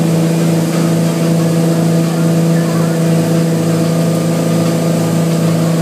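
Towing speedboat's engine running at a steady pitch under load, with the rush of the churning wake.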